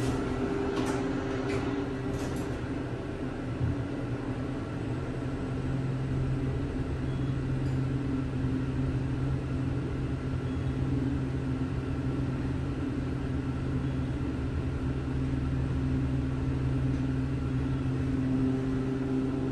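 Dover traction passenger elevator, modernised by ELCON, heard from inside the cab as the car travels down to the ground floor. It gives a steady hum and low rumble that grows stronger a few seconds in and eases near the end, with a few light clicks in the first couple of seconds.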